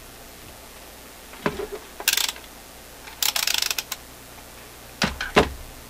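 Clatter of small hard objects being handled on a workbench: a click about a second and a half in, a short rattle just after two seconds, a longer rattle of quick ticks around three to four seconds, and two thumps near the end.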